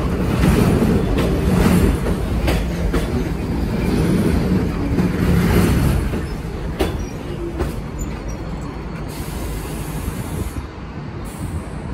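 New York City subway train rolling past close by, its wheels clacking over rail joints in a steady rhythm. The rumble drops off after about six seconds, and a few single clicks follow.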